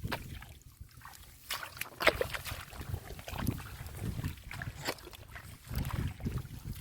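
Irregular splashing and sloshing of muddy water as hands dig and grope for fish in the mud.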